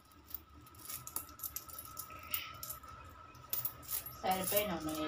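Metal coins clicking and clinking together as they are picked up and sorted by hand on a bed, in light scattered clicks; a voice starts near the end.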